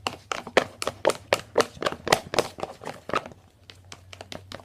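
Thick shampoo slime being stirred in a plastic container: a quick run of wet clicks and squelches, about four or five a second, thinning out after about three seconds.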